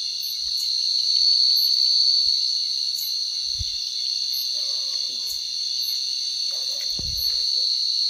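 Night insect chorus: a steady, unbroken high-pitched trilling from many insects. A couple of soft low thumps sound about three and a half and seven seconds in.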